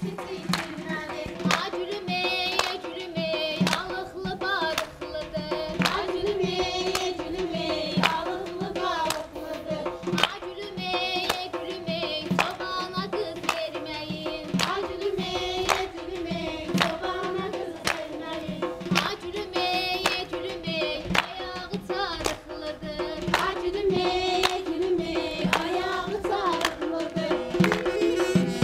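A women's folk group singing a yallı dance song together, over a frame drum (qaval) and hand claps beating about two strokes a second.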